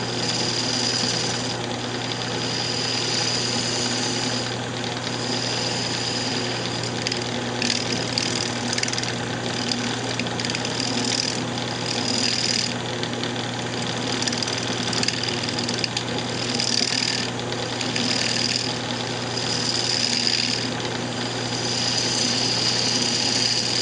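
Lathe motor running with a steady hum while a detail gouge cuts a spinning blank of layered automotive paint. The scraping hiss of the cut comes and goes in short passes.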